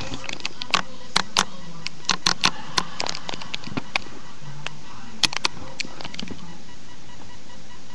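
Irregular clicks, taps and short rustles of a plastic-limbed doll and its clothing being handled as a sweatshirt is worked onto it, over a faint steady background of a TV.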